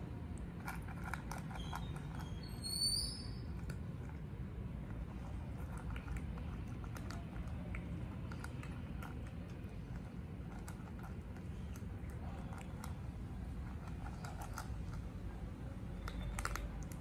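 Cats eating dry kibble from metal bowls: many small, irregular crunching clicks over a steady low hum. A brief high chirp sounds about three seconds in.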